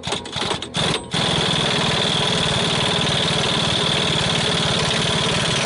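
Impact wrench hammering the pinion nut off a Jeep Cherokee's Dana 30 front axle, the nut's loosening made worse by a worn-out pinion bearing. A few short bursts come first, then from about a second in a steady, fast hammering.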